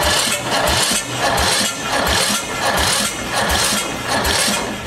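Electric starter cranking a 17 hp single-cylinder Briggs & Stratton engine, fed straight from a 12-volt battery lead. It turns over hard and not fast enough, with about two heavy strokes a second, and does not fire. He suspects the compression release is not being bumped because of the valve clearance.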